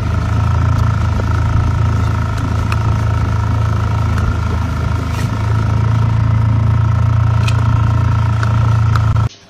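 Engine of a small boat running steadily under way, a loud even drone with no change in pitch. It cuts off abruptly near the end.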